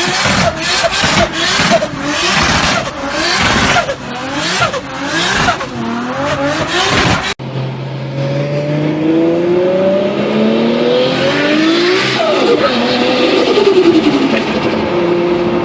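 Tuned turbocharged car engines in two clips. In the first, the engine is revved up and down over and over, about once or twice a second, with loud rough bursts. After a sudden cut about seven seconds in, an engine's pitch climbs steadily as it accelerates, a high whistle joins near the top, and then the pitch falls away steeply.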